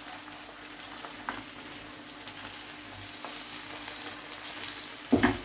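Savoy cabbage frying in a pan with a steady sizzle, a few light clicks along the way and a louder knock near the end.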